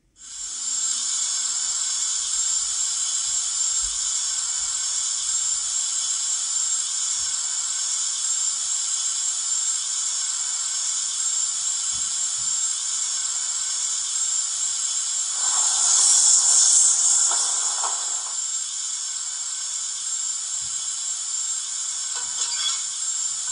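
Hornby Royal Scot model locomotive's YouChoos sound decoder playing standing steam-engine sounds through its small speaker: a steady hiss that comes on suddenly, with a louder, fuller burst of hiss lasting about three seconds roughly two-thirds of the way through.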